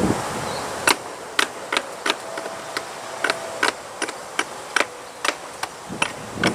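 Nails being driven into new wood soffit trim: a run of about fourteen sharp, short shots, two or three a second.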